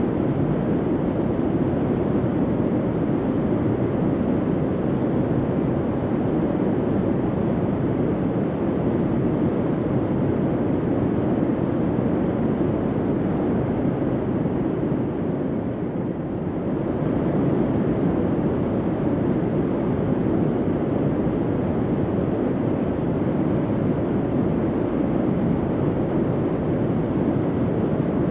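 Steady, low rumbling hum of a bunker ambience, an even noise without distinct tones or knocks. It dips slightly in level about halfway through, then carries on unchanged.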